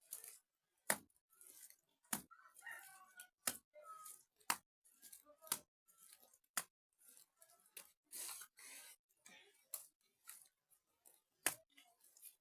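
Hands working wet mud into a cracked mud wall: sharp slaps roughly once a second, irregularly spaced, with scraping and rubbing between them.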